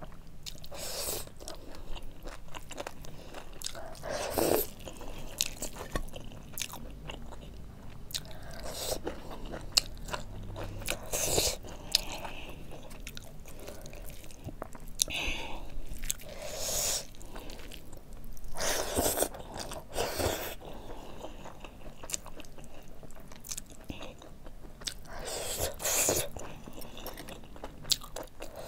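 Close-miked chewing and biting: a person eating buffalo meat curry and rice by hand, with many short mouth clicks and irregular louder bites.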